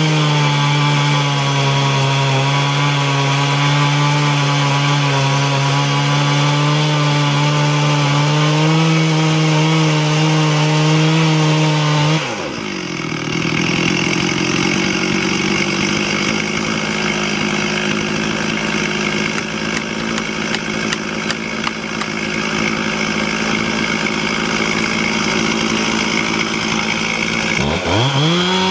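Stihl MS 440 two-stroke chainsaw running at full throttle, cutting through a pine log on an Alaskan chainsaw mill. About twelve seconds in the throttle is let off and the engine drops to idle, with scattered light clicks. Near the end it revs sharply back up to full cutting speed.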